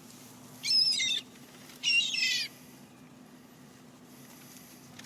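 Birds being fed, calling twice: two loud, high calls of about half a second each, about a second apart, over a low steady hum.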